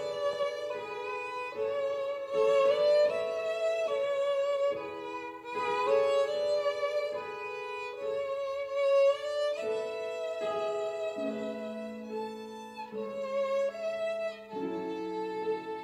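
Background music: a violin playing a slow melody, each note held with vibrato. Lower held notes join underneath about eleven seconds in.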